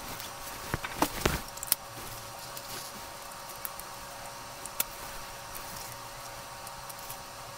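A few small clicks and taps from a phone display assembly and tweezers being handled on a work surface. They come in a quick cluster in the first two seconds, with one more sharp click near the middle, over a faint steady hiss.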